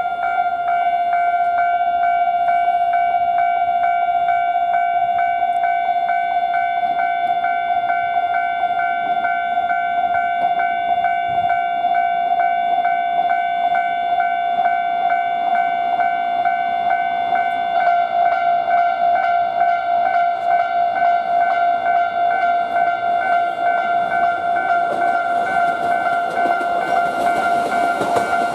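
Japanese level-crossing warning bell ringing steadily as a fast repeating electronic ding. A second, slightly lower bell joins about two-thirds of the way through. Near the end the noise of an approaching train grows beneath the bells.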